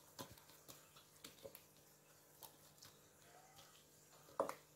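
Near silence with faint soft taps and drips as thick coconut cream is poured from a bowl into a metal baking tray. A short, louder knock comes near the end.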